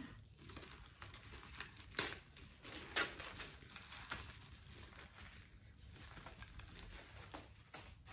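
Paper wrapping crinkling and rustling as it is pulled off a handbag by hand, with a few sharper crackles among a faint rustle.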